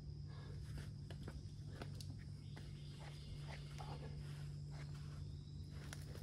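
Climbing shoes and hands scuffing and scraping on the boulder's rock in short, irregular scrapes and taps as the climber works up the top-out. Underneath runs a steady high insect drone and a steady low hum.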